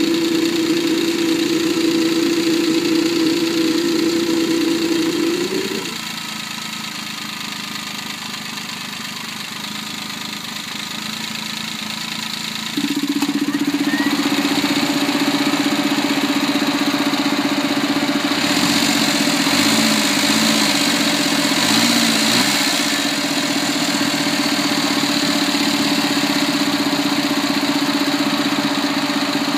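Suzuki Alto Works HB21S engine running with a loud steady droning hum, the "gooo" noise coming from the open-type air cleaner, which the owner traces to the VSV (vacuum switching valve). The drone drops away about six seconds in and comes back louder at a slightly lower pitch about seven seconds later; the owner finds its volume changes with the valve's opening. It is an abnormal noise that began after an engine overhaul.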